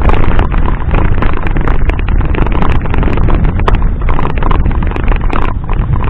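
Heavy wind buffeting on the microphone while a mountain bike rides over sand, with many sharp rattles and clicks from the bike as it bumps along.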